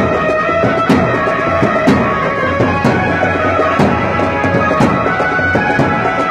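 Background music: held drone-like tones under a percussion beat struck about once a second.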